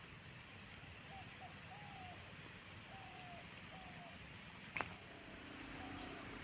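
Quiet outdoor ambience with a few faint, short falling chirps spread through it. One sharp click comes a little before the end, and a low steady hum sets in after it.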